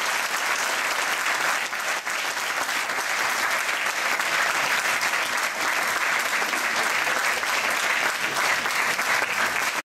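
Audience applauding, many hands clapping steadily at the end of a speech.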